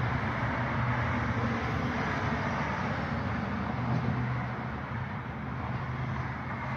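Steady road traffic noise: a low engine hum over a broad rush of road noise, easing a little in the second half.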